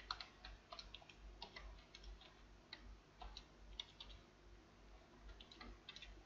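Faint, irregular tapping of computer keyboard keys, single keystrokes and short runs with brief pauses between them.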